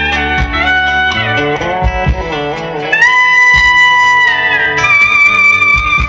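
Live Turkish-style instrumental music. A clarinet leads with a winding melody that runs downward, then holds a long high note about three seconds in and another near the end. Plucked strings and drums play underneath.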